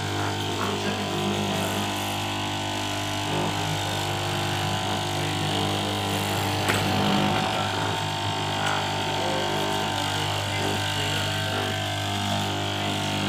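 Electric straight-knife cloth cutting machine running with a steady hum, its upright reciprocating blade cutting through a stack of fabric.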